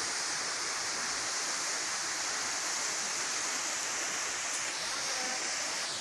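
Steady, hissing rush of a waterfall about 35 metres high.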